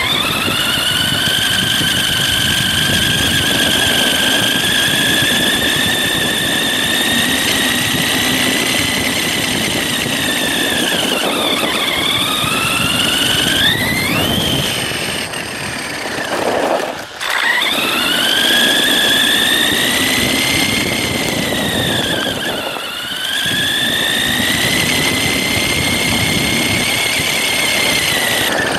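Electric motor and gear drive of a 1/10 RC monster truck whining as it drives. The high whine rises and falls with throttle, dips twice, sinks almost to nothing about two-thirds through as the truck slows, then climbs again, over a rough rumble from below.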